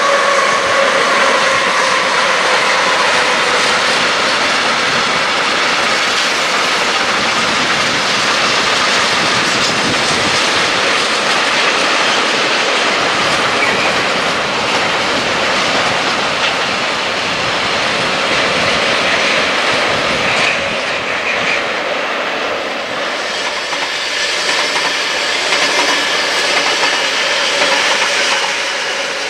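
A long freight train of tank wagons hauled by an electric locomotive rolls steadily past, its wheels clattering over the rails. There is a whine that falls slightly in pitch over the first few seconds.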